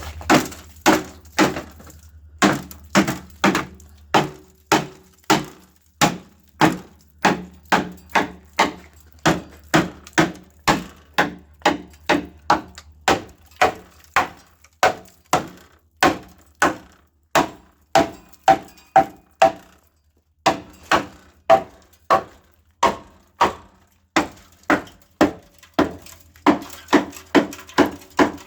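Wooden percussion, marimba-like, in background music: a steady run of knocks, two to three a second, whose notes step up and down in pitch, with two brief drop-outs.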